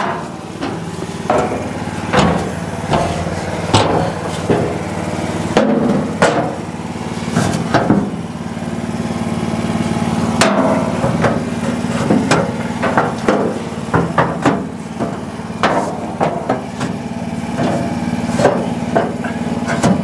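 An engine idling steadily while more than a dozen sharp metal knocks and clanks land at irregular intervals, roughly one every second or two.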